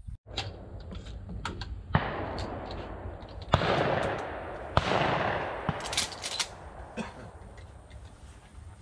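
Shotgun shots on a clay range: three loud reports about two, three and a half and five seconds in, each followed by a long rolling echo, then fainter distant shots and clicks.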